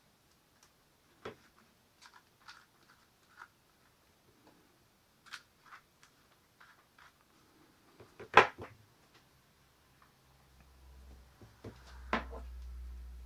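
Scattered light clicks and knocks of small objects being handled, with one loud sharp knock about eight seconds in. A low steady hum starts about ten seconds in.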